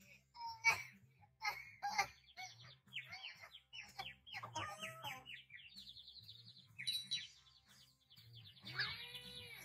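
Cartoon sound effects: a run of high, squeaky chirps and whistles that sweep up and down in pitch, with a few sharp clicks in the first two seconds and a rising-and-falling whistle near the end.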